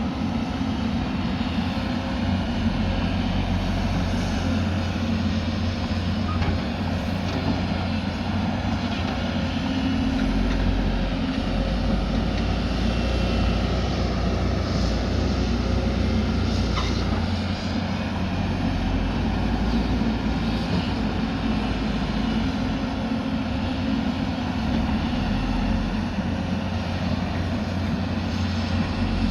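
Diesel engine of heavy earthmoving machinery (backhoe loader or excavator) running steadily under work, a low continuous rumble with a couple of faint knocks.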